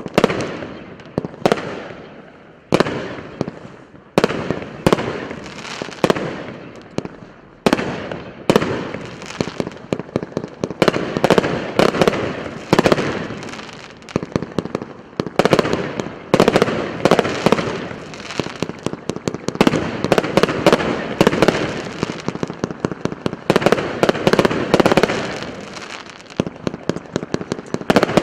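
A 64-shot firework cake firing shot after shot. At first the sharp reports come about every second and a half; from about ten seconds in they come faster and overlap, with dense crackling.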